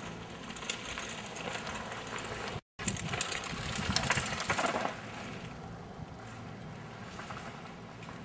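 A downhill mountain bike passing on a loose gravel trail, its tyres crunching over the stones while the bike rattles and clicks. The sound cuts out for a moment about two and a half seconds in and is loudest from about three to five seconds in.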